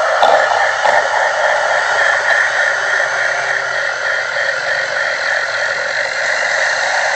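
Monster creature sound effect: a continuous harsh, grainy noise with no clear pitch, holding steady in level.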